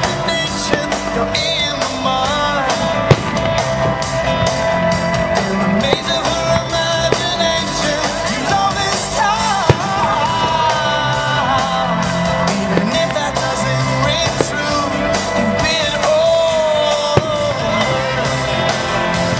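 A rock-and-roll style song with a singing voice plays throughout, and a few sharp bangs of fireworks bursts cut through it, the loudest about three seconds in and another near ten seconds.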